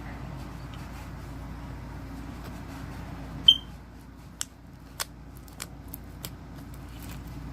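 Foam slime being handled, over a steady low rumble, with a series of sharp crackling pops starting about halfway through: the first one, a loud click with a squeak, then four fainter ones.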